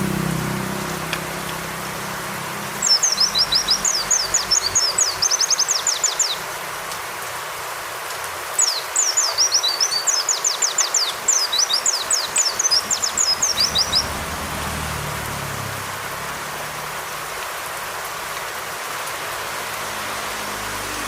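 White-eye (pleci) song: two long runs of rapid, high, downward-sweeping twittering notes, over a steady rain sound that continues alone through the last several seconds.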